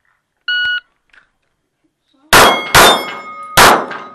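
A shot timer's short start beep, then three 9mm pistol shots from a Canik TP9SFX in the second half, two quickly and a third under a second later, each followed by steel targets ringing from the hits.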